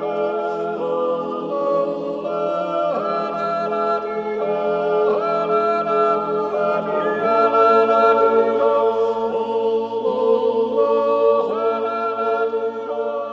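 A Chlausezäuerli, the wordless Appenzell yodel of the Silvesterkläuse, sung a cappella by a Schuppel. The voices hold long chords over a low drone and slide together to a new chord every second or two.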